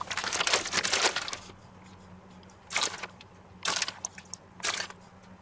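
Plastic bag of grated Emmentaler crinkling as it is handled. There is a long rustle of about a second and a half, then three short crinkles about a second apart as the cheese is shaken out.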